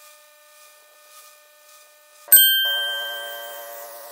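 A bright bell-like ding, struck once a little over two seconds in and ringing away over about a second, then a steady buzzing tone of several pitches.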